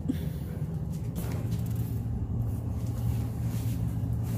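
A steady low hum with light rustling over it.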